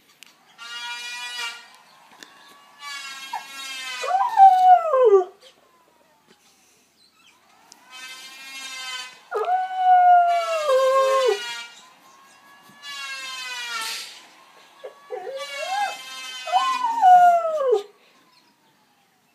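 A planer running in about six short bursts with a high whine, and a dog howling along with it. There are three long howls, each falling in pitch at its end.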